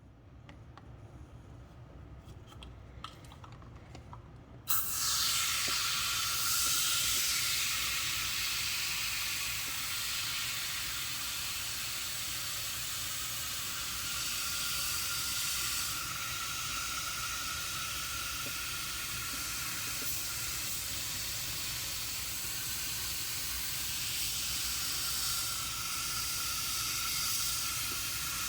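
Kaboom cleaner sprayed from an aerosol can in one long steady hiss, starting suddenly about five seconds in after a few faint handling clicks.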